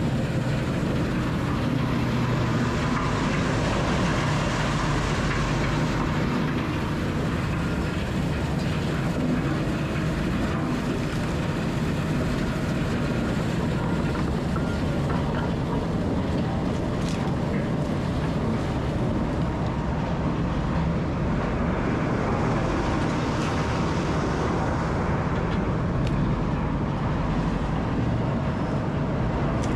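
Rotochopper B66L wood grinder running steadily, turning whole trees into chips: a heavy diesel drone with a dense grinding rush over it that doesn't let up.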